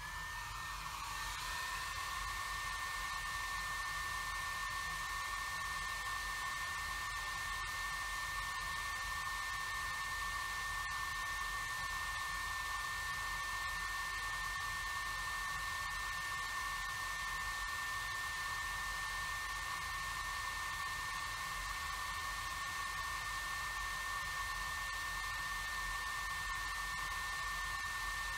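Small handheld hair dryer switched on, its motor whine rising over the first second or so, then running steady with a whine over a rush of air.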